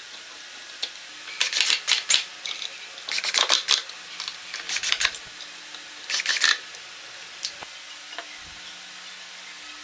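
Cordless drill driver running screws into a pine board in four short bursts, with a few knocks of wood and tools being handled between them.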